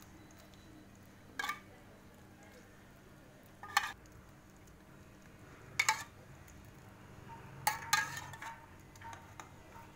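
A steel spoon clinking against a metal bowl as lemon syrup is scooped out and spooned over basbousa: a sharp ringing clink about every two seconds, with a few in quick succession near the end.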